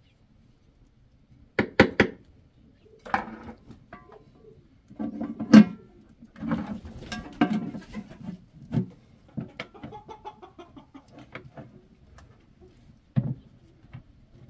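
Metal pot lid clanking and knocking against the rim of a pot of cooked rice as it is handled, set on and pressed down: several separate clanks, the loudest about five and a half seconds in, then a last knock near the end.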